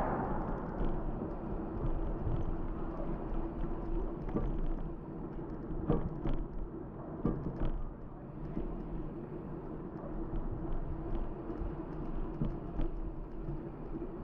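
Riding noise picked up by a bicycle-mounted camera: a steady rumble of tyres rolling on asphalt under a faint low hum, with scattered knocks and rattles, a cluster of them about halfway through.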